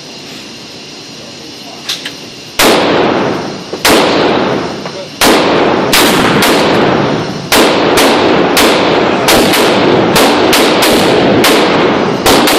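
Gunshots in an indoor shooting range, each ringing on in the hall, including a Mossberg shotgun firing slugs. The first shot comes about two and a half seconds in, a few more follow a second or so apart, and from the middle on the shots come in quick succession, some only a third of a second apart.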